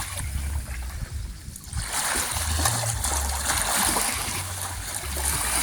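Lake water lapping and splashing at the shore: a steady rushing noise that grows louder and fuller about two seconds in, over a low, uneven rumble.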